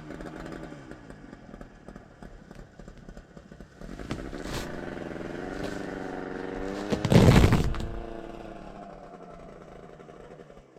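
Buran snowmobiles' two-stroke engines running nearby with a wavering pitch, growing louder about four seconds in, revving hard at their loudest about seven seconds in, then dying away.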